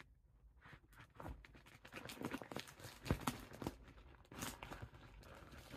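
Plastic mailing bag crinkling and rustling as hands handle and pick at it, with many small irregular crackles and ticks.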